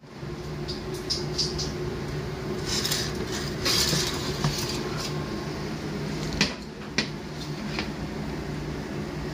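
Electric oven humming steadily while a metal grill tray is handled and slid out, with scraping and two sharp metal clinks about two-thirds of the way through.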